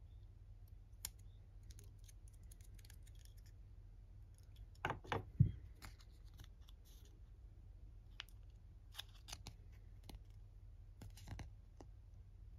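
Small plastic toy parts clicked together and set down on a table with a few sharp knocks about five seconds in, then a paper sticker sheet handled with light crackling clicks.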